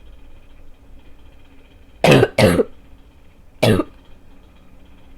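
Three harsh, barking coughs from a person: two in quick succession about two seconds in, then one more about a second later. It is a cough left over after about two weeks of illness.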